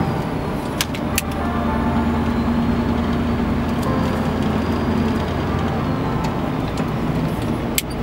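Scania truck's engine running steadily under way, with road noise, heard from inside the cab. A few short sharp clicks from the cab: twice about a second in and once near the end.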